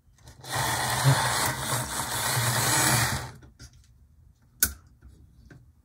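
HO-scale model diesel locomotive whirring loudly on the track for about three seconds, its motor and gears running with wheels on the rails. A single sharp click follows about four and a half seconds in.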